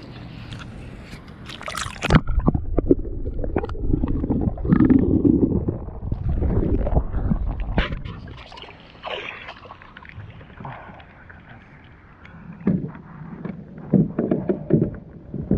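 Kayak paddling on calm water: paddle strokes splashing and gurgling, with knocks and bumps from the paddle and the plastic hull of a Lifetime Hydros sit-on-top kayak, heaviest in the first half. Near the end, a cluster of sharp knocks and splashes as the kayaker steps out into shallow water beside the kayak.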